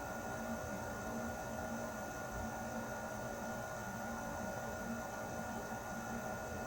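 Air conditioner running steadily: an even rushing hum with a few constant whining tones over a low drone that wavers slightly.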